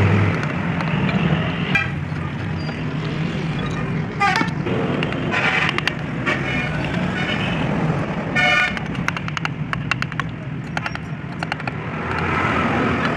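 Steady traffic rumble with vehicle horns tooting briefly a few times, and small sharp clicks of a hand-pushed carving chisel cutting chips from wood.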